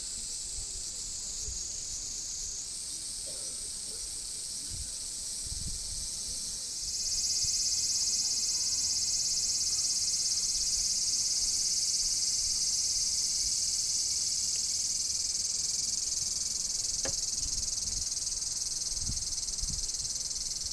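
Insects chirring in a steady high-pitched chorus, with a faint regular ticking early on. About seven seconds in a much louder, denser buzz joins and holds on.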